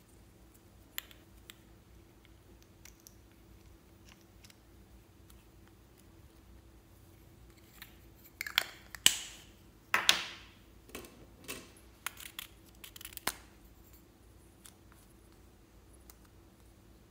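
Plastic lipstick tubes and their caps being handled, with sparse small clicks and taps. About halfway through comes a short run of louder scraping and rustling noises, followed by a few sharper clicks.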